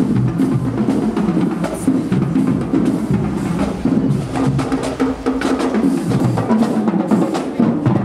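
High school marching band playing, with a busy drum part of snare and bass drums over sustained low brass.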